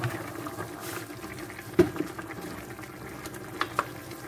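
Pot of tomato sauce with potatoes simmering as cubed zucchini is tipped in and stirred with a spatula, with wet sloshing of the vegetables. A sharp knock a little under two seconds in, as a utensil strikes the steel pot, and a few lighter clicks later.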